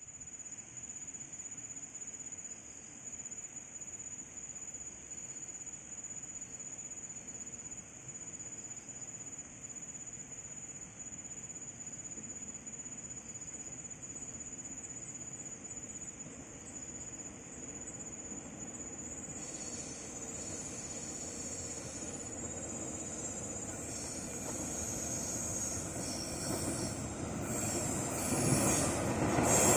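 An insect chirring on one steady high note with small regular dips, then, over the last ten seconds, a diesel-hauled freight train of tank wagons approaching, its rumble and wheel screech on the curve growing steadily louder.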